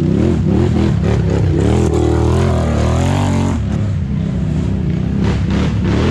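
ATV engines running hard and revving up and down, pitch rising and falling with the throttle, with some clatter from the quads over rough ground.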